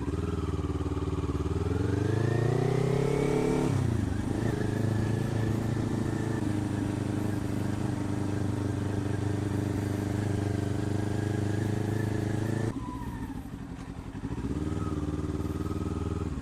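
Motorcycle engine pulling away with the pitch rising for about four seconds, then dropping sharply at a gear change. It holds a steady note under light throttle, the throttle closes with the pitch falling about thirteen seconds in, and the engine comes back on at a steady note near the end.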